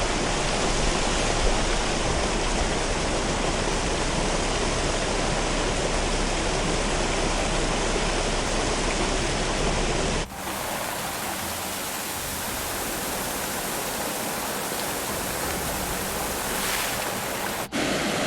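Floodwater rushing: a steady, dense noise that changes abruptly twice, about ten seconds in and near the end.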